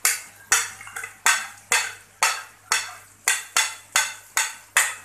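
Wooden spatula scraping mashed roasted eggplant off a ceramic plate into a metal pan, in quick sharp strokes about two a second.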